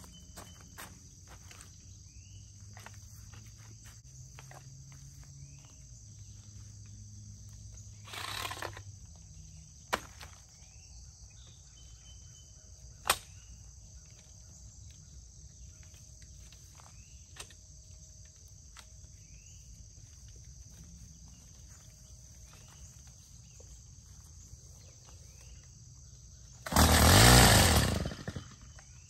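Steady high insect chorus, with scattered clicks and knocks as the Stihl Kombi hedge trimmer is handled. Near the end comes a loud burst of about a second and a half: the Kombi's engine is pull-started and fires briefly.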